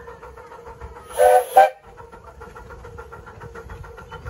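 Whistle of a 7¼-inch-gauge miniature steam locomotive, sounding a longer blast and then a short second one about a second in. A faint, even rhythmic beat from the working locomotive follows.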